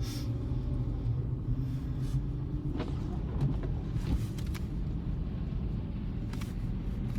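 Steady low rumble of a car on the move, heard from inside the cabin, with a few short clicks.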